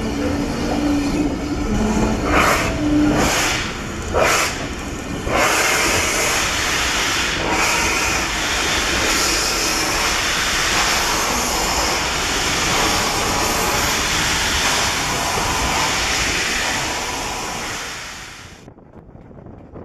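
BR Standard Class 4MT 2-6-0 steam locomotive pulling away with its train: a few separate exhaust chuffs, then a steady loud hiss of steam venting around the cylinders. The hiss fades near the end and cuts off suddenly.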